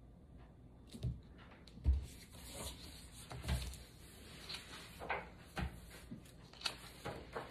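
A large hardcover picture book being set down on a wooden table and opened: several dull knocks of the book and hands against the tabletop, the strongest about two seconds in, with the rustle of pages being turned between them.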